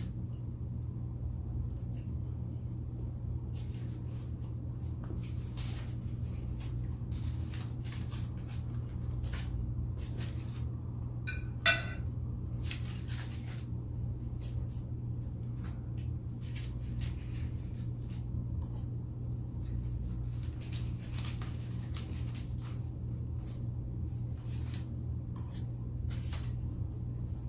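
Eating sounds: chewing, with scattered clicks of a utensil on a dish over a steady low hum. A little before halfway through comes one sharp, ringing clink, the loudest sound.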